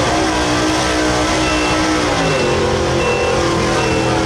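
Small-block gasoline V8 of a Chevrolet Silverado 2500HD pickup running hard under load as it drags a pulling sled through dirt. The engine note dips about two seconds in, then holds steady at high revs.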